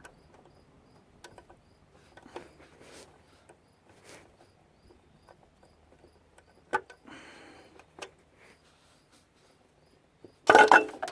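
Faint, scattered clicks and taps of hand tools and bolts during work on a Ford 7.3 diesel's water pump, with a brief hiss about seven seconds in and a loud short clatter near the end.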